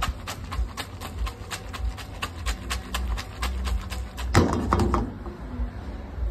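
Frying pan rattling against the gas stove's grate as it is shaken to toss pasta in cream sauce: a quick, even clacking of about four knocks a second, with one heavier clank shortly before it stops about five seconds in.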